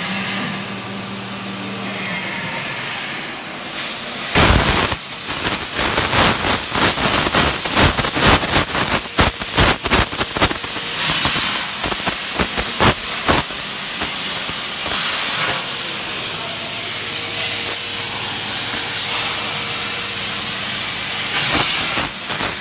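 A 100 A CNC plasma torch cutting steel plate: a loud, steady hiss, with irregular crackling through the middle and a low hum for the first couple of seconds.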